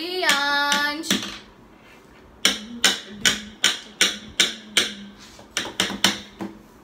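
Hands slapping a rhythm on folding lap-desk tops, sharp knocks about three a second. A voice holds one long note for about a second at the start.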